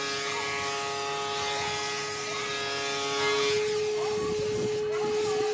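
Small electric power tool running with a steady whine; part of its tone drops away about three and a half seconds in.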